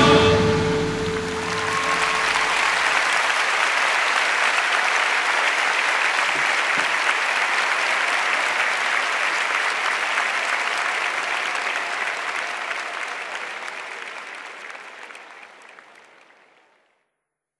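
The last chord of a song dies away in the first second or so. Then a large live audience applauds, and the applause fades out over the last few seconds.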